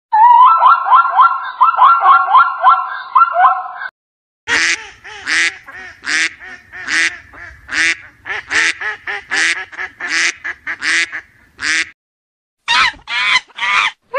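A zebra's barking call, a fast run of short yelping notes, for the first four seconds. Then, after a brief gap, a flock of domestic ducks quacking in a string of loud quacks, with a short pause about twelve seconds in.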